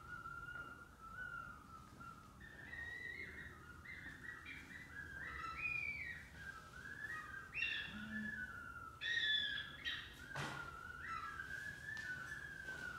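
High whistling with one hand cupped at the mouth, wavering, stepping and sliding in pitch in short phrases. It is loudest about nine seconds in, and a soft knock comes just after ten seconds.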